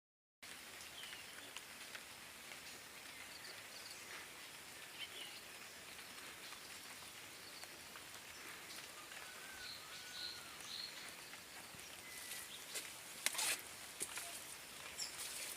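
Faint steady rain hiss with a few scattered bird chirps, and several sharp taps or knocks near the end.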